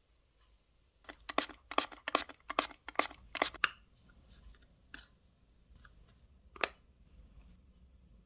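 Photocard packing materials being handled: a quick run of about eight crisp rustles and crinkles over roughly three seconds, then two single ones later.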